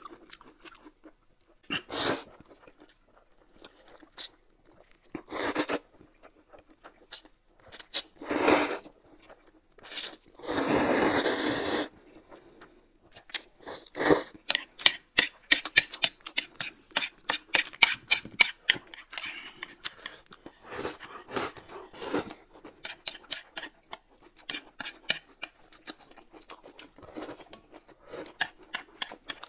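Close-up eating sounds: a few short loud slurps in the first half and one longer slurp about ten seconds in, then fast, crunchy chewing with many sharp clicks.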